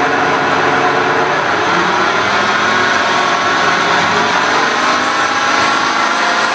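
Wells Index vertical milling machine's head running in high range, its motor fed by a variable frequency drive turned down to 15 hertz, so the spindle turns at about a quarter of its 600 RPM setting. It is a steady mechanical running sound with several steady whining tones, and its lowest hum drops away near the end.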